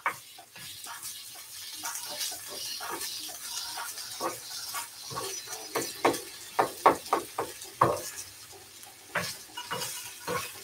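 Spatula stirring ground beef and potato mixture in a frying pan, with repeated short scrapes and taps against the pan over a steady frying sizzle.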